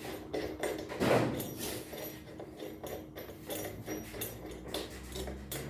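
Irregular clicks and knocks of tools and metal parts being handled while a washing machine's drum assembly is bolted together, with the loudest knock about a second in.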